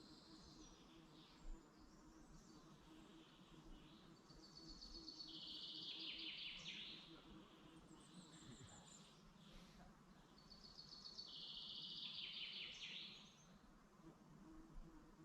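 Woodland birds singing. One bird sings the same song phrase twice, each a quick run of notes lasting about two and a half seconds and ending in a falling flourish. Fainter calls from other birds and a low steady hum run underneath.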